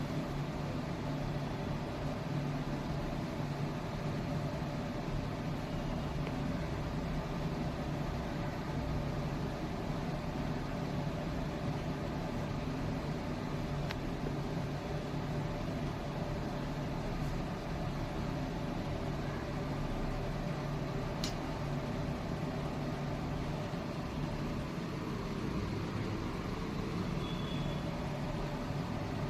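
A steady low machine hum with a faint rushing noise over it, unchanging throughout, and one brief click about 21 seconds in.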